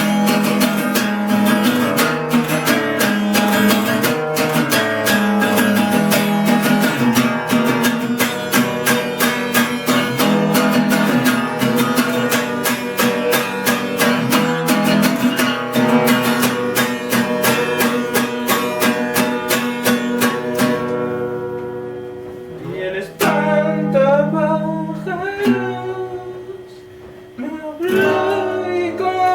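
Acoustic guitar strummed fast and steadily; the strumming eases off about two-thirds of the way in and a voice starts singing over the guitar, in two phrases.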